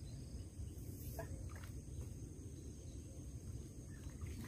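Quiet outdoor ambience at a pond: a steady low rumble, a faint high steady insect drone, and a few faint short bird chirps about a second in.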